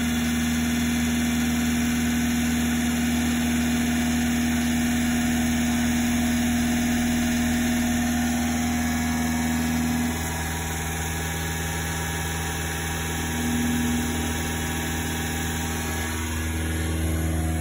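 Subaru Sambar kei truck engine running at a fast idle of about 2000 rpm, shortly after a cold start. The steady running note gets a little quieter about ten seconds in.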